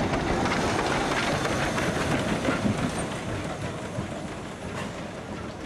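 Prussian T3 0-6-0 steam tank locomotive rolling past at close range, wheels clanking over the rails. It grows fainter over the last couple of seconds as it moves off.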